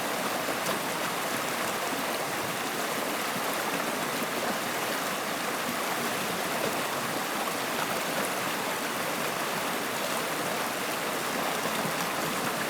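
Running water of a stream flowing steadily, an even, unbroken rush.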